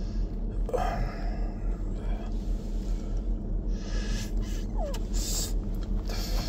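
Steady low hum in a car's cabin, with several short breaths over it.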